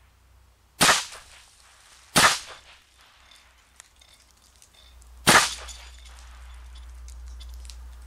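Three .22 LR rifle shots from a Bushmaster Carbon-15 AR-style rifle fitted with a .22 LR conversion bolt, each a sharp crack with a short tail. The first two come about a second and a half apart, the third about three seconds later.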